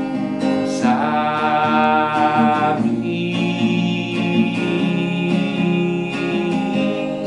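Acoustic guitar being strummed, with a man singing long held notes over it.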